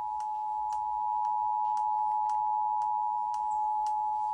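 Emergency Alert System two-tone attention signal: the 853 Hz and 960 Hz tones sounding together and held steady, announcing a relayed severe thunderstorm warning. Faint clicks repeat about twice a second underneath.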